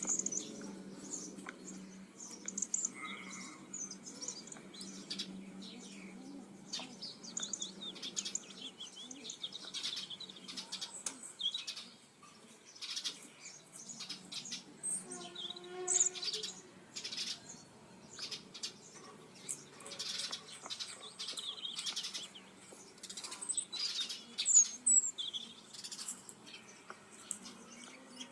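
Small birds chirping and singing throughout, with frequent brief rustles. A single short pitched call comes about halfway through.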